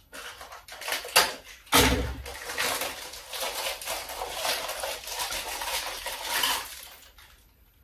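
Plastic packaging crinkling and rustling as a small aluminium part is unwrapped by hand. A few light clicks come first, then a steady crackle for about five seconds that dies away near the end.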